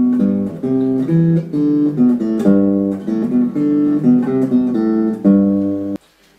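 Snap Dragon folding travel guitar played through an amplifier: a picked melody of single notes and chords, stopping abruptly near the end.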